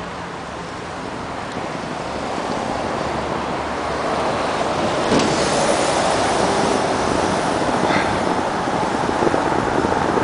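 Wind rushing over the microphone of a camera carried on a moving bicycle, mixed with the running of city traffic close by. The rush builds over the first few seconds as the bike rolls downhill, then holds steady.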